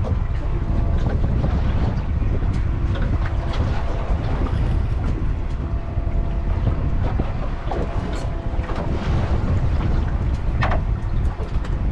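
Wind buffeting the microphone aboard a fishing panga: a steady low rumble with faint steady tones above it and scattered light clicks.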